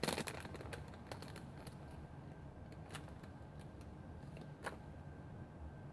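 Faint handling noises of a small sight lens and its plastic parts: light rustling with a few sharp little clicks, one at the start, one about three seconds in and one near the end.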